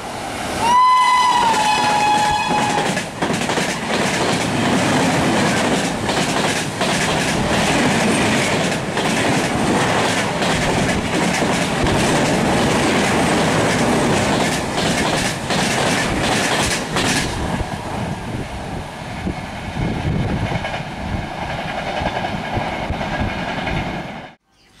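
A train horn sounds one blast of about two seconds, its pitch falling partway through. An express train then passes at high speed: a loud rush of wheels on rail with rapid clickety-clack over the rail joints, easing somewhat about two-thirds of the way in and cutting off suddenly near the end.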